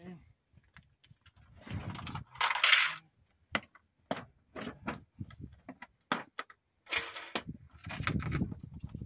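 Steel sockets and hand tools clinking and rattling as they are picked up and set down, with louder scraping rustles about two and a half seconds in and again near the end.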